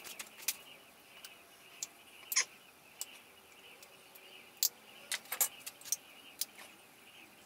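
About a dozen light, irregular clicks and taps, the loudest a little over two seconds in and a cluster past the middle, over a faint steady hiss.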